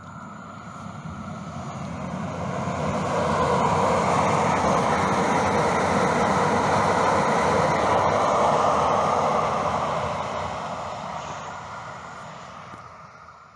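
Calgary CTrain light rail train running on its tracks: a rushing rumble that swells over the first few seconds, holds, then fades away near the end.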